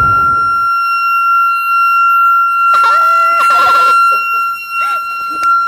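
Bomb-defusal training prop sounding one continuous high-pitched electronic alarm tone, signalling that the defusal failed and the 'bomb' has gone off. A loud hiss from the detonation fades out in the first second, and a voice cries out about three seconds in.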